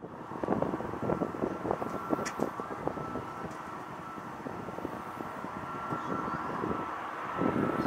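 Jet engines of a departing Airbus A320neo airliner heard from a distance, a steady rough rumble with crackle and a faint steady whine above it.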